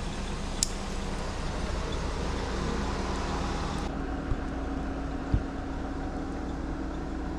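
Steady low rumble of outdoor background noise with a faint hum, like a distant motor, and a sharp click about a second in, followed later by a couple of soft thumps.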